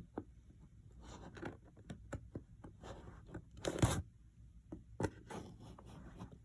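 Tape seal on a cardboard box being cut and torn open: scattered small scratches and clicks, with a louder rasping tear about four seconds in and a shorter one a second later.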